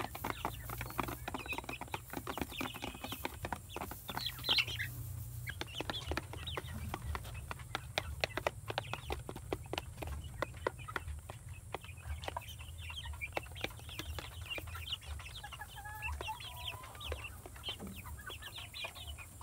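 Young H&N Dominant CZ chickens pecking feed from plastic feeder trays: a dense patter of quick beak clicks, with soft clucks and chirps now and then.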